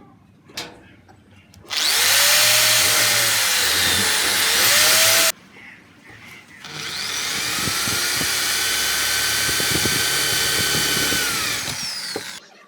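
A power tool runs in two bursts: the first starts and stops abruptly after about three and a half seconds, and the second winds up, runs steadily for several seconds, then winds down near the end.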